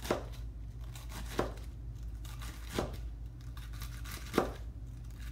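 Chef's knife chopping iceberg lettuce on a plastic cutting board: four crisp cuts, about one every second and a half. A low steady hum sits underneath.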